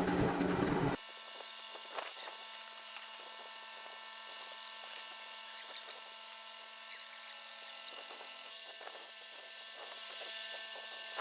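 A homemade sprayer rig driven by a car AC compressor runs loudly, then stops abruptly about a second in. After that comes a faint steady hum with a few light ticks.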